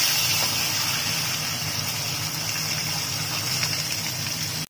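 Pomfret steak frying in very hot, smoking mustard oil in a wok: a steady, loud sizzle, with a steady low hum underneath.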